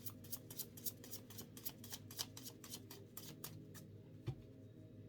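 Deck of tarot cards being shuffled by hand, a quick even run of card snaps at about five a second that stops about four seconds in, followed by a single low thump.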